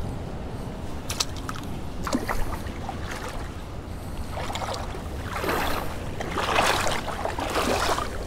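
Feet wading through shallow seawater among rocks: a few clicks, then sloshing splashes with each step, growing louder in the second half.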